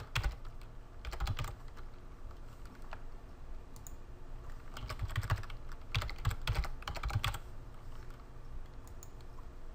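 Typing on a computer keyboard in short bursts of key clicks, with pauses between the bursts.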